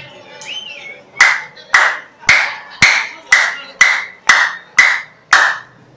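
A single person's hands clapping close by: nine sharp claps in a steady rhythm, about two a second.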